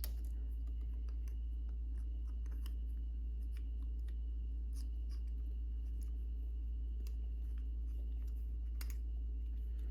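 Faint scattered clicks and light taps of small parts being handled while a Lectron carburetor's slide is fitted, over a steady low hum.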